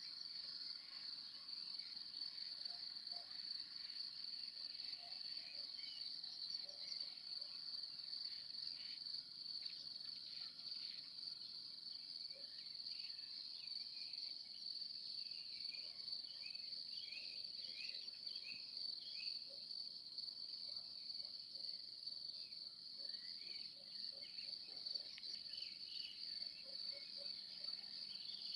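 Crickets chirping in a steady chorus, with faint scattered chirps above it.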